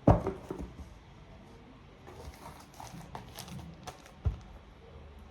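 Covered school books being handled and put down: a loud thud right at the start, light knocks and rustling, then another sharp knock about four seconds in.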